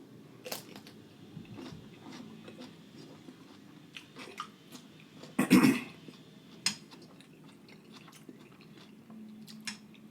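Close-miked eating: a mouthful of sausage, rice and cucumber being chewed, with a run of sharp mouth clicks and crunches. One loud crunchy bite comes about five and a half seconds in.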